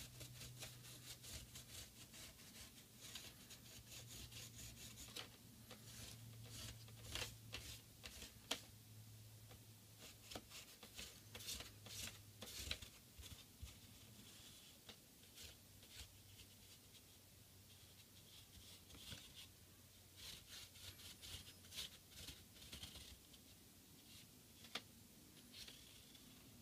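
Faint, irregular dabbing and tapping of a Yonex stencil ink bottle's applicator tip against badminton racket strings through a stencil card.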